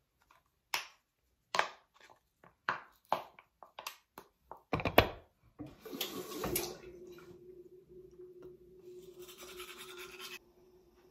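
Small objects being handled: a string of short sharp clicks and knocks, then from about six seconds in a steady low hum with a hiss over it, the hiss stopping shortly before the end.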